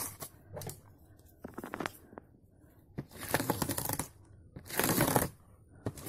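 Plastic courier packaging rustling and tearing in several short bursts as it is cut with scissors and pulled open, the longest and loudest bursts in the second half.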